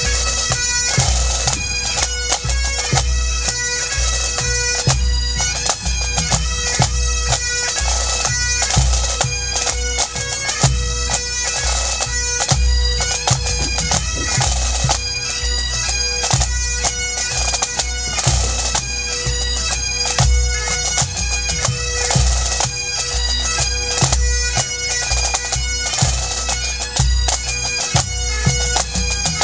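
Great Highland bagpipe playing a tune over its steady drones, with a Scottish pipe-band bass drum beating regular low strokes along with it.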